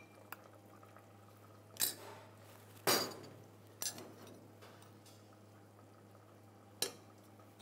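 Four short clinks of a metal spoon against a ceramic plate, spread out, the loudest about three seconds in, over a faint steady low hum.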